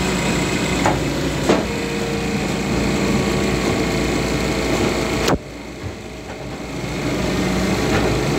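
Paper cutter's electric main drive motor running, turning the flywheel through its belt: a steady machine hum with two light clicks early on. About five seconds in the level drops suddenly, then the hum builds back up.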